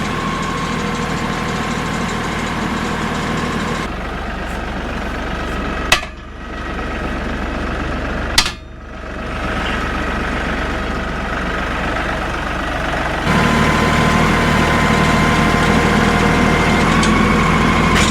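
LS tractor's diesel engine running steadily while moving logs on pallet forks, with two sharp knocks about two and a half seconds apart near the middle.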